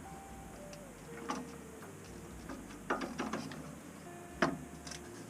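Handling clicks and knocks from parts and tools being worked inside a boiler cabinet: a few sharp clicks, a small cluster about three seconds in and the loudest about a second and a half later.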